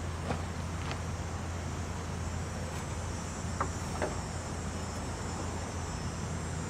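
Insects buzzing steadily and high-pitched over a constant low hum, with a few faint ticks.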